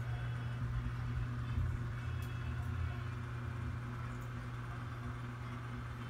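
Steady low hum with faint hiss, unchanging: background room noise from an unseen motor or fan.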